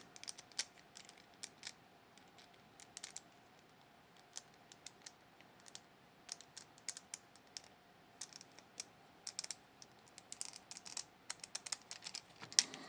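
Sporadic small, sharp clicks and taps of metal lock parts and tools being handled while a Miwa Kaba Star Orion dimple lock is disassembled. The clicks come thicker near the end.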